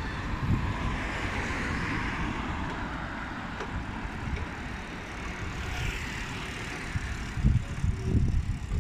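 Road traffic passing on a city street: the tyre and engine noise of cars swells and fades twice over a steady low rumble.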